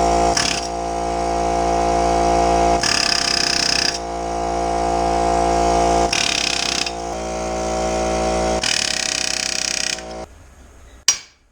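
Pneumatic air chisel (air hammer) running almost without pause, a fast buzzing rattle with hissier stretches, driving a pressed-in part out of a steel control arm. It stops about ten seconds in, and a single sharp metal knock follows near the end.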